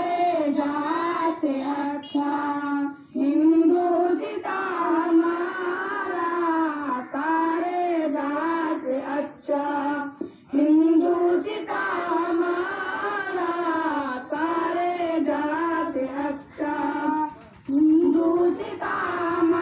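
A child singing solo: one clear voice carrying a slow melody in phrases, with short pauses for breath between them.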